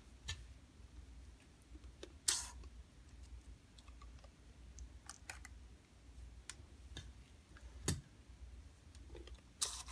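Faint, scattered clicks and taps of a spoon and batter against paper liners and a metal muffin tin as thick chocolate batter is spooned in. Two short louder scrapes stand out, about two seconds in and near the end, with a sharp tap shortly before the end.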